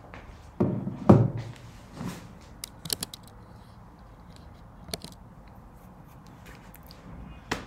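Desk handling noises: a couple of thumps and rustles about a second in, then a scattering of light clicks.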